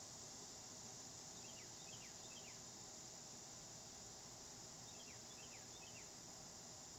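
Faint steady high-pitched chorus of insects, with a small bird giving two short series of three quick descending chirps, one near the start and one past the middle.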